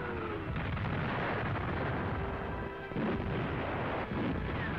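Artillery fire on a wartime newsreel soundtrack: a falling whistle fades out at the start, then field-gun shots go off about three seconds in and again near the end, over a continuous battle rumble.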